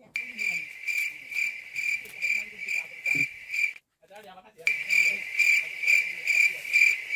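Cricket chirping: a high, steady trill pulsed about two to three times a second, which stops for about a second midway and then resumes.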